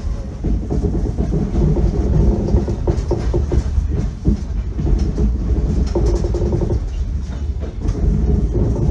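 Passenger train running on the rails: a steady rumble of wheels and carriage, with the clickety-clack of the wheels passing over rail joints.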